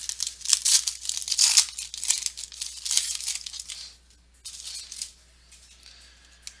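Foil trading-card pack wrapper being torn open and crinkled by hand, a dense crackling rustle for about four seconds, then a shorter burst before it dies down.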